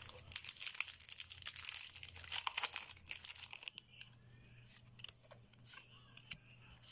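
A foil trading-card booster pack being torn open, its wrapper crackling and crinkling for about the first three seconds. Then quieter handling of the cards, with a few light clicks and slides.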